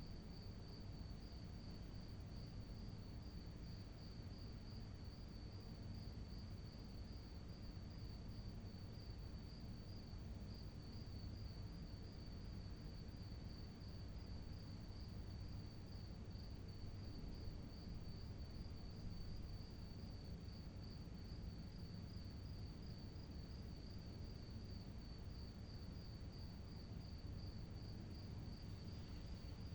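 Crickets trilling: a steady, fast-pulsing high trill that does not stop, over a low, even background rumble.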